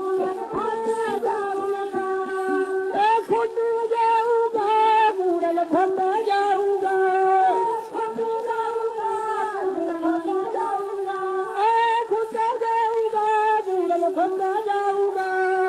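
Punjabi religious song played from an old 78 rpm shellac record: a melody of long held notes with slides between them.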